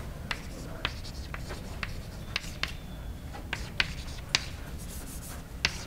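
Chalk writing on a blackboard: a string of sharp, irregular taps and short scratches as the strokes are made, over a low steady room hum.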